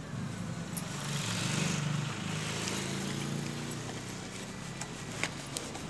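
A low engine-like hum that swells about a second and a half in and then eases off, with a few light clicks and rustles of plastic-wrapped sanitary pads and cardboard boxes being handled.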